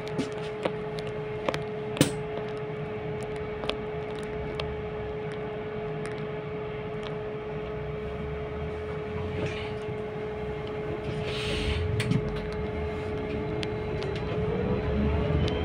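Inside a trolleybus standing at a stop: a steady electrical hum with scattered clicks and rattles, and a short hiss about eleven seconds in. Near the end a rising whine sets in as the traction motor starts to pull the trolleybus away.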